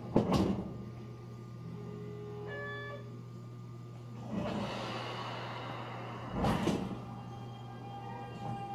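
Cab of a Keio 8000-series electric train standing at the platform ready to depart: a steady low hum, a brief electronic beep about two and a half seconds in, and sharp knocks just after the start and about six and a half seconds in.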